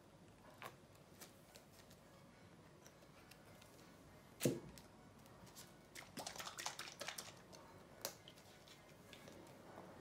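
A quiet room with one sharp knock about four and a half seconds in, then a quick run of small clicks and taps lasting about a second and one more click a little later: small objects being handled and set down.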